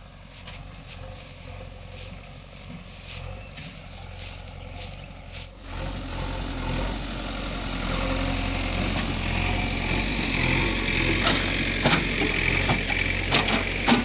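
Diesel engines of tractors running. About five and a half seconds in, the sound jumps to the louder, closer diesel engine of a JCB backhoe loader, with a steady higher whine joining later and a few sharp knocks near the end.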